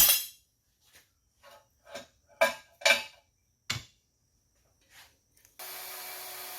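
Hand tool working metal in the shop: a loud scrape, then short scraping strokes about two a second that trail off. A little before the end a power tool cuts in abruptly and runs steadily with a low hum.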